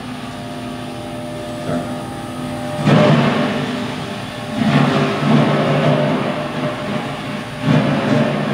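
Apple washing elevator and crusher running, grinding apples into pulp for juice. A steady mechanical hum surges louder about three seconds in, again near five seconds and near eight, heard through a lecture hall's loudspeakers.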